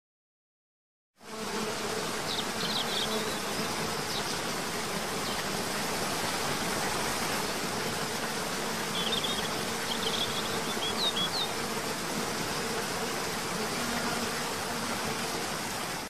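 Waterfall cascading into a pool: a steady rushing of falling water that starts about a second in, with a faint low hum beneath it. Two brief groups of high bird chirps come through over the water.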